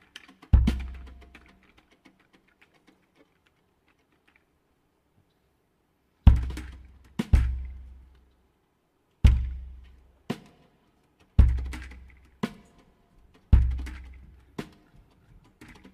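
Deep drum strokes that ring out and die away. One stroke comes just after the start, then a pause, then a slow, steady beat of strokes about a second apart, a heavy one followed by a lighter one, repeating.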